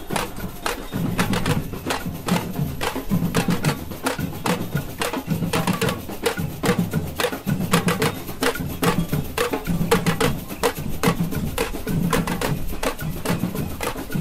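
Batucada-style protest noise: many metal pots and pans struck with spoons in a rapid, dense clatter, over a drum beat that comes about once a second.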